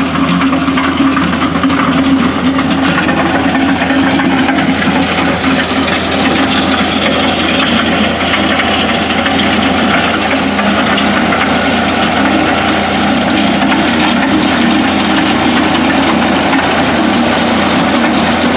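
Tractor engine running steadily under load while it drags a box scraper along a gravel road, with the blade scraping and grinding through the gravel.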